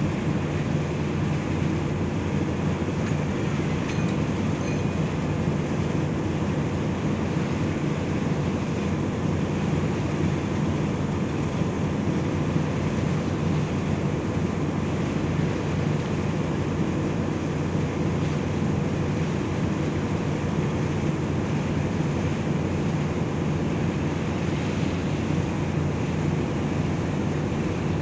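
A ship's engine running steadily underway, a low even drone, with a rush of wind and sea water over it.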